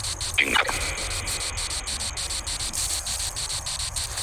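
Chirping insects in a steady, pulsing chorus, with a brief sound that sweeps down in pitch about half a second in.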